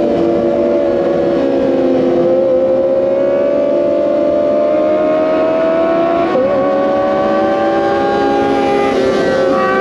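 Kawasaki ZX-25R's 250 cc inline-four engine running at high revs while the bike cruises, a steady high-pitched note that sinks slowly in pitch and then climbs again, with a brief dip about six seconds in.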